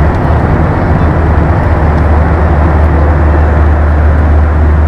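Steady low drone of an airliner cabin: engine and air noise running evenly, with a strong low hum underneath.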